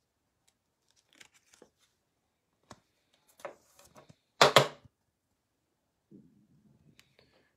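Plastic card sleeve and rigid toploader rustling and scraping as a trading card is slid into them, in a few short scattered bursts, the loudest about four and a half seconds in.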